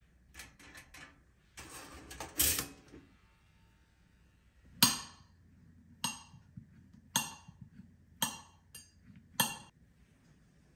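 Glass and ice clinking in the first three seconds, then about six sharp taps roughly a second apart as a knife slices a banana on a ceramic plate, the blade striking the plate at each cut.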